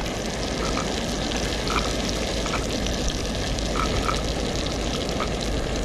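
Garlic cloves frying in bubbling butter in a pan: a steady sizzle with scattered small pops.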